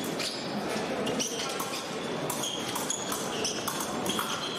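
Fencers' footwork on the piste: rubber shoe soles squeaking and stepping, in a large, echoing hall with voices in the background.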